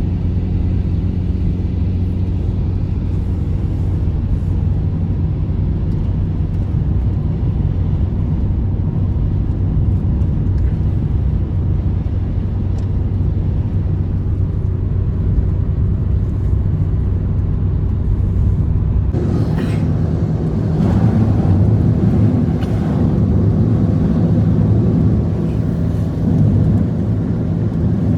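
An engine running steadily with a low rumble. It gets louder and rougher about two-thirds of the way through.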